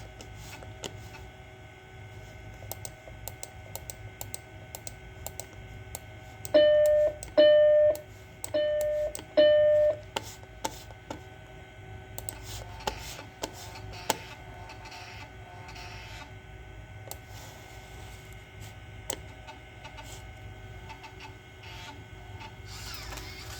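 A Macintosh SE beeping four times through its built-in speaker, short beeps at one steady pitch, in two pairs between about six and ten seconds in. Under them runs the computer's steady hum, with scattered sharp clicks.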